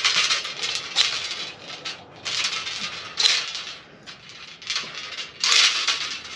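An old-school single flare tool's feed screw being wound down by hand into the end of a half-inch hardline. It gives a metallic grinding and creaking in four strokes, with a couple of sharp clicks, as the cone presses the tube out into a 37-degree flare.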